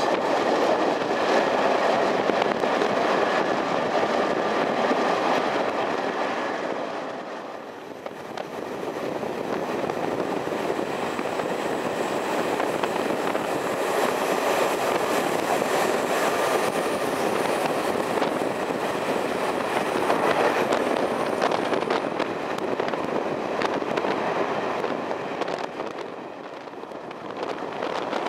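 Train running, a steady rush of rolling noise that drops away briefly about eight seconds in and again near the end.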